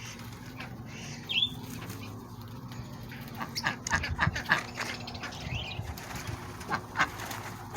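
Caged birds flapping their wings in a quick run of beats about halfway through and once more near the end, with a couple of short chirps.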